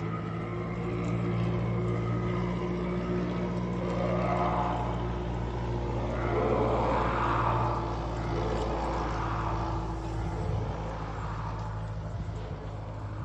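A steady low drone of several held tones, with a rushing noise that swells up about four seconds in and dies away again by about ten seconds.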